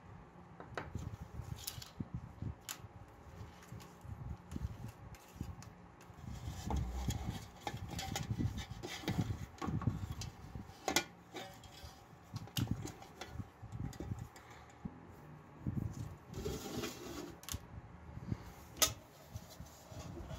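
Hands handling metal lamp parts and electrical wire: irregular small knocks, clicks and rubbing as the wire is fed through the lacquered metal shade. There are two sharper clicks, one about halfway through and one near the end.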